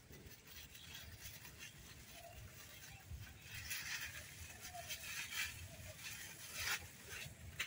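Faint rustling and crackling of leaves and stems as a guava is handled and picked off a small tree, louder in the middle and later part.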